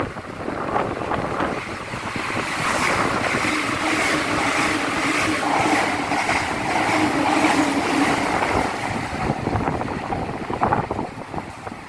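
Joban Line express train passing in a heavy typhoon rainstorm. A loud rush builds about two seconds in, carrying a steady hum and a quick, even clacking, then fades near the end. Wind buffets the microphone throughout.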